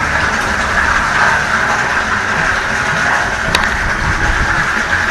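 Water from a fire hydrant rushing through a hose into a water tank at full flow, a steady loud rush. A single sharp click comes about three and a half seconds in.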